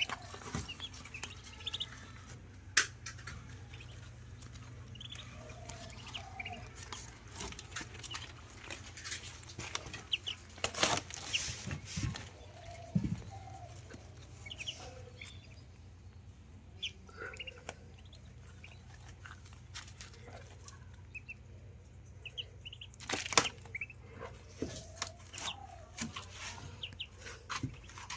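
Young ducklings peeping in short, scattered high chirps, with a few sharp clicks and a steady low hum underneath.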